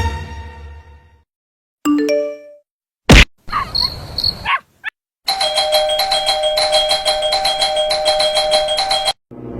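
A run of separate short sound effects. Music fades out first, then come a brief chime of a few notes, a sharp loud click and a short noisy burst. The run ends with about four seconds of a steady, evenly pulsing electronic ringing, like a bell or doorbell.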